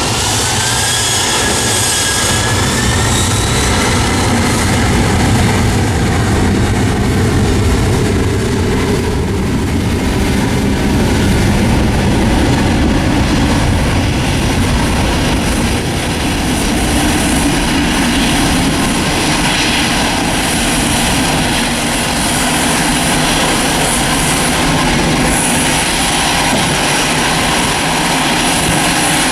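Boeing 767 freighter's jet engines running with a steady, loud rush. Whining tones rise in pitch over the first few seconds.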